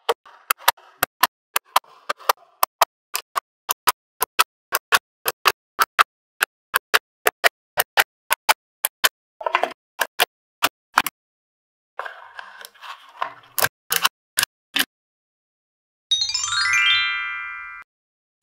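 Small magnetic balls snapping together one at a time, sharp clicks at about three a second, with a brief rustle of balls and a few more clicks later on. Near the end a rising, chime-like sound effect sweeps upward.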